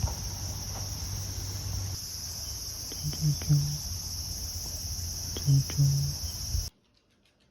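Steady high-pitched insect chorus of summer cicadas or crickets over a low background rumble, with two pairs of short low sounds about two and a half seconds apart. The whole chorus cuts off abruptly near the end.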